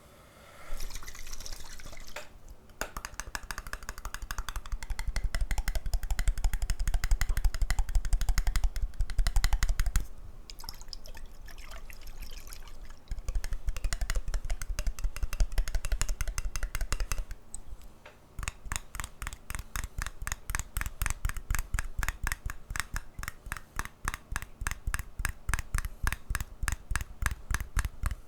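Water poured and worked by hand close to the microphone, with a heavy low rumble under dense crackling stretches, then a rapid, even run of short clicks in the last third.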